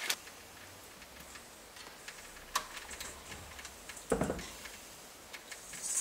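Quiet handling noises at a workbench: a few faint clicks and light taps, with one duller knock about four seconds in.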